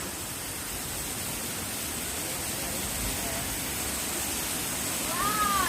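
Waterfall rushing steadily. About five seconds in, a brief high call rises and falls over the rush.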